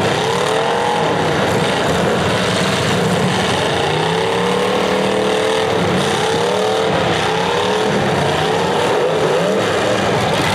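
Several demolition derby cars' engines revving up and down, their pitch rising and falling again and again over a steady din of engines.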